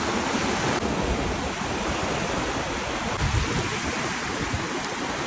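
Ocean surf washing onto the beach, a steady rushing noise with some low rumble.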